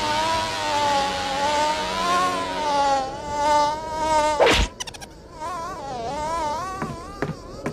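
Cartoon fly buzzing, a drone that wavers up and down in pitch throughout, with one sharp hand clap about four and a half seconds in as it is swatted at; the buzzing goes on after the clap.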